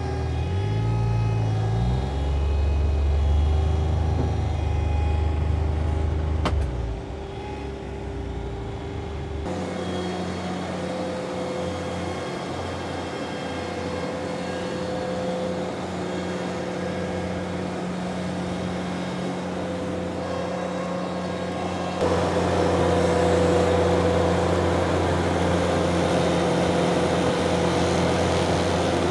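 Ventrac 4520 compact tractor engine running under load in deep pond muck, its pitch stepping up over the first two seconds. After about nine seconds it settles to a steady engine note with the Tough Cut mower cutting cattails and tall grass, and it runs louder from about 22 seconds.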